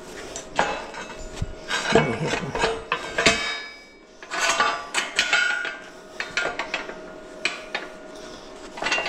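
Steel plates and brackets clanking and knocking as they are handled and fitted, with a few short metallic rings. The knocks are loudest about two and three seconds in and lighter near the end.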